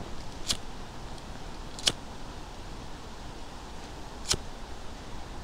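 Three sharp clicks or snaps, about half a second, two seconds and four seconds in, over a faint steady hiss.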